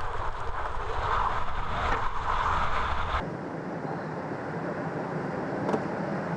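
Gale-force wind rushing and buffeting the microphone over breaking surf, with a heavy low rumble; about three seconds in it cuts abruptly to a steadier rush of wind and water with less rumble.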